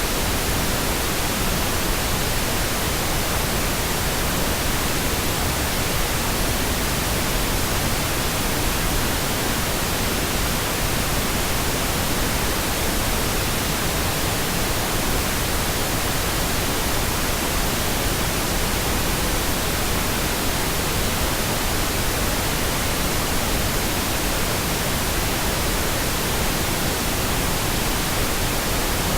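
Steady synthetic pink noise: an even, unchanging hiss spread across all pitches, with no change in level.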